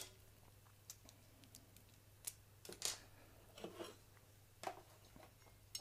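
Faint, scattered clicks and taps of small spacers and screws being handled and fitted into a sheet-metal case, about half a dozen spread across a few seconds over a low steady hum.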